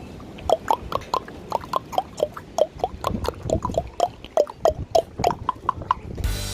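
Common raven making a rapid run of short, hollow knocking clicks, about four or five a second, each with a slight bend in pitch.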